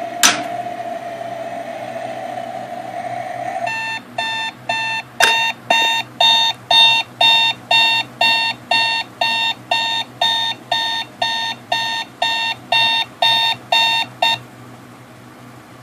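Rocket-shaped novelty alarm clock going off: after a click, a steady tone with a rising hiss for about three and a half seconds, then an electronic beep-beep alarm about twice a second that stops suddenly about fourteen seconds in.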